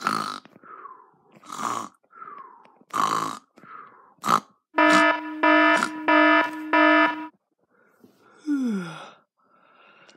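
A voice imitating snoring, noisy snorts alternating with falling whistles, then an electronic alarm beeping loudly in four quick bursts. Near the end comes one groan that falls in pitch, like a waking yawn.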